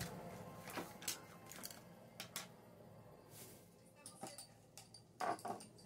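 Light handling noises on a tabletop: a few scattered clicks and rustles as small items are picked up and moved, the loudest a short rustle about five seconds in.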